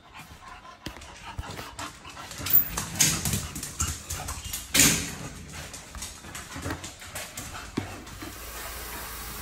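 American bully dogs whimpering close by, mixed with sharp knocks and crackles from an empty plastic water jug being handled. The loudest knocks come about three and five seconds in. Near the end a steady hiss of running tap water sets in.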